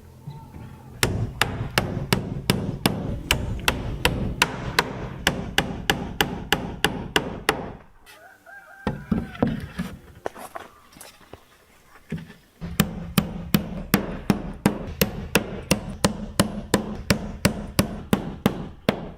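Steady hammering in two runs of quick, even strikes, about three a second, with a pause of about four seconds in the middle.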